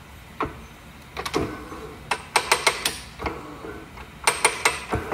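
Irregular sharp metal clicks and knocks, several in quick clusters, from the Bridgeport step-pulley assembly's parts being centred and pressed together in a press.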